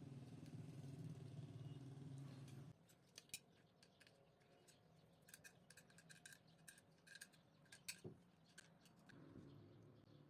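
Faint, irregular clicks and taps of small metal parts and hand tools being handled while a cable is fastened to a battery clip. A low steady hum cuts off about three seconds in.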